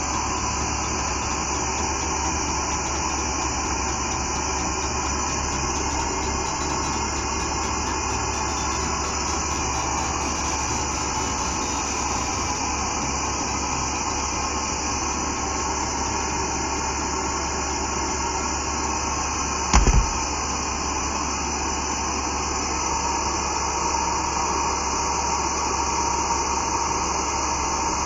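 Steady mechanical noise, like a machine's fans or air pump running, with one short low thump about two-thirds of the way through.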